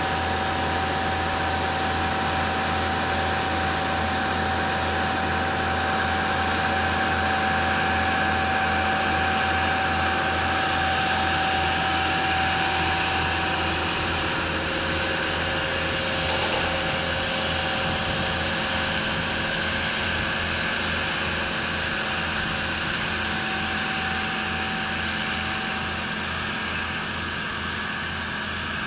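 Steady drone of farm machinery on a drag-hose slurry-spreading job: an engine running at constant speed with a pulsing low hum and a steady whine over it. It eases off slightly in the second half.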